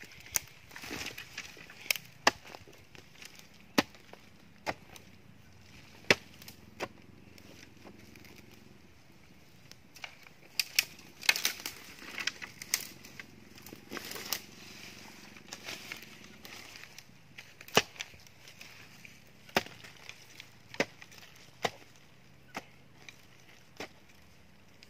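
A hoe chopping into forest soil, roots and leaf litter to dig a planting hole: sharp, irregular strikes every second or two, some in quick pairs.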